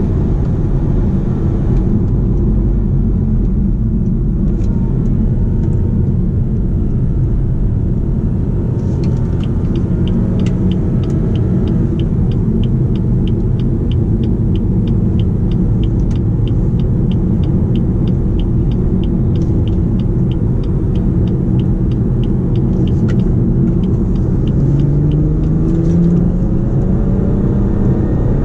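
2019 BMW 440i's turbocharged 3.0-litre straight-six running steadily under road and tyre rumble, rising in pitch near the end as the car picks up speed. Through the middle stretch a light, regular ticking, about three a second, plays over it.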